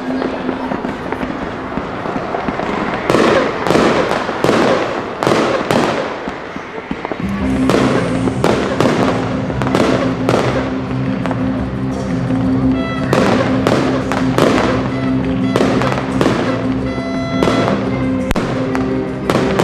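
Fireworks display, with aerial shells bursting in a rapid series of bangs. About seven seconds in, music with long held notes comes in under the bangs.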